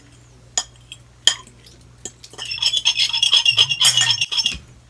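An eating utensil clinking and scraping against a dish: a few separate clinks, then about two seconds in a quick run of rapid clinking that lasts about two seconds.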